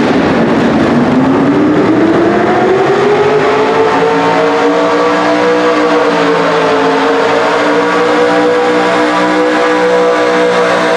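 Chevrolet S-10 Pro Stock Mini pulling truck's engine at full throttle, dragging a weight-transfer sled through the dirt. It runs through open, upright exhaust stacks. The revs climb over the first few seconds, then hold high and steady under the load.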